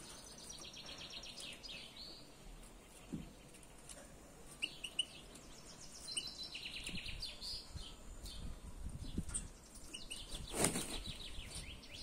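Songbirds singing: three quick trilled phrases of rapidly repeated high notes, with scattered short chirps between them. A brief rush of noise comes about ten and a half seconds in.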